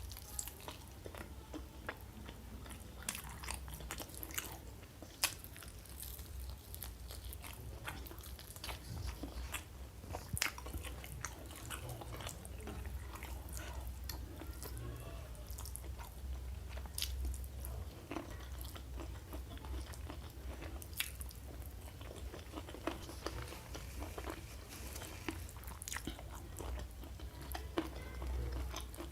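Close-miked mouth sounds of eating: chewing with many small, crisp crunches and clicks, spread irregularly, over a steady low hum.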